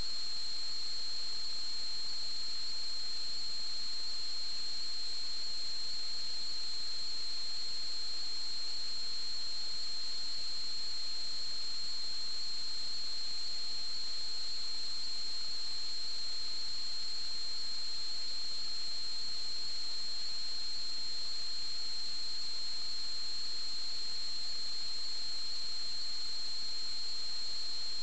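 Steady high-pitched electronic tone over an even hiss, unchanging throughout: the idle noise of a sewer camera recorder with no camera signal coming in.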